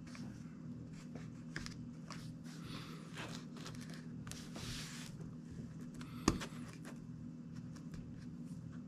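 Plastic pry tool scraping and clicking along the edge of a tablet's screen, prying it away from the plastic bezel, with one sharper click about six seconds in. A low steady hum runs underneath.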